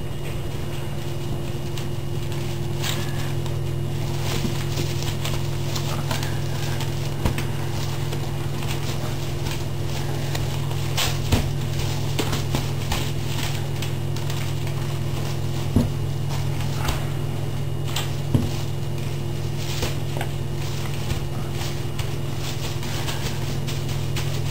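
A kitchen broom's bristles scraping and knocking on a tiled floor as a raccoon grapples with it: scattered clicks and scuffs with a few sharper knocks, over a steady low hum.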